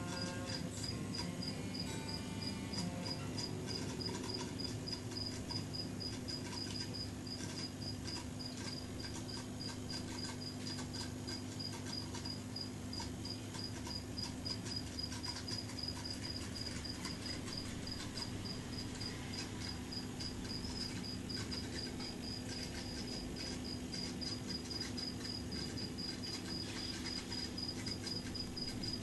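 A cricket chirping steadily in an even, rapid pulsed rhythm, over a low steady hum.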